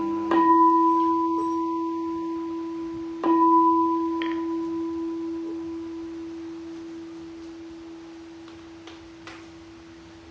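Buddhist temple bowl bell struck twice, about three seconds apart. Each strike rings with a steady low hum and a higher overtone that slowly die away. The strikes close the chanted dedication of merit.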